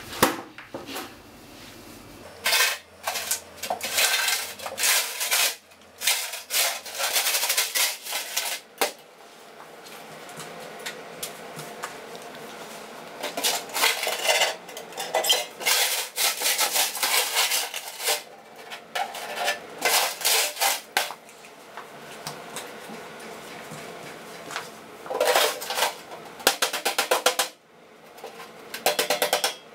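Metal cookie tin being handled and opened, with repeated bursts of metallic clattering and rattling from the lid and its contents.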